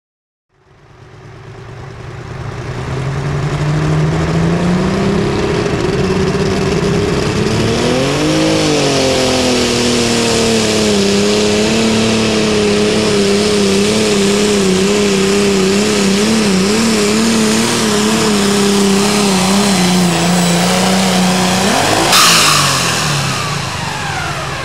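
Turbocharged diesel super stock pulling tractor running at full throttle down the track under sled load. The engine note fades in, climbs, surges once, then holds with a wavering pitch. About 22 seconds in there is a sudden rush of noise, and then the engine and turbos wind down as the pull ends.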